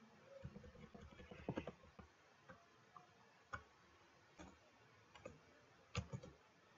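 Faint clicks of computer keyboard keys being pressed: a quick run of keystrokes from about half a second to two seconds in, then single key presses roughly once a second.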